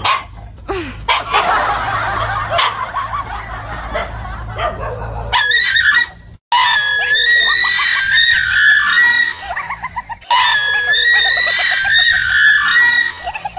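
A dog barking repeatedly at close range. From about six seconds in, a high, held wailing tone is laid over the barking, stopping briefly and then repeating almost identically.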